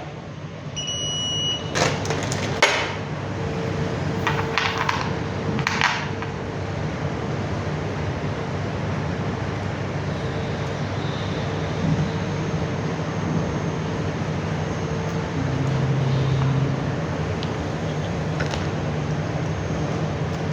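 Steady mechanical hum, with a short electronic beep about a second in and a few sharp clicks over the next few seconds.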